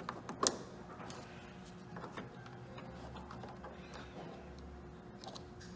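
Small plastic clicks and rattles of a headlight wiring connector being handled. The sharpest click comes about half a second in, followed by lighter ticks over a faint steady hum.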